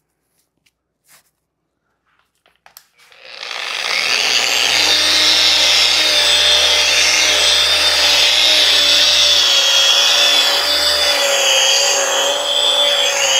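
Electric angle polisher starting about three seconds in and then running steadily with a held whine. Its 3000-grit foam pad is buffing a sanded marble-effect plaster wall, the gloss-extraction stage. A few faint clicks come before it starts.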